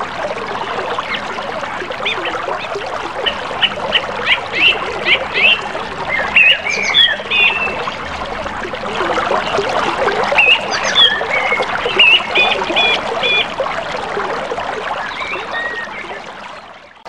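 A river running over shallow riffles: a steady rush of water. Birds give series of short, repeated calls over it several times, and the whole sound fades down near the end.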